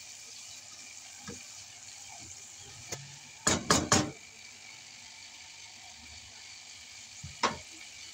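Chicken with onions and spice paste frying in oil in a non-stick wok, with a steady sizzle. A spatula stirs and knocks against the pan now and then; the loudest are three quick knocks about three and a half seconds in, and there is one more near the end.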